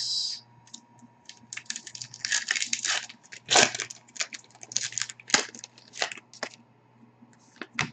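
The foil wrapper of a Fleer Retro hockey card pack being torn open and crinkled by hand: a run of irregular crackles and rips, busiest in the middle few seconds.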